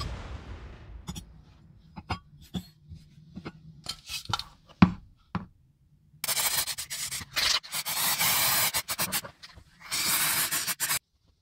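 Small sharp clicks and taps for the first few seconds, then repeated bursts of rough scraping and rubbing by hand, in two longer spells with a short break between them.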